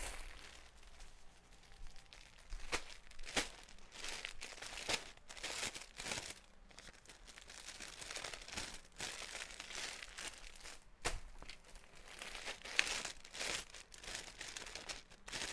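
Plastic packaging crinkling and rustling in irregular bursts as bagged clothing is handled, with a few sharp crackles.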